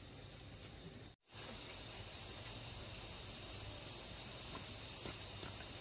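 Insects trilling in one steady, high, unbroken note, the sound cutting out for a moment about a second in.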